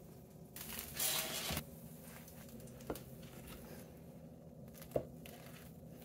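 Knife cutting through a slab of toasted sliders on a wooden cutting board: a crunchy rasp of the blade through the bread about a second in, then two sharp single knocks of the knife on the board.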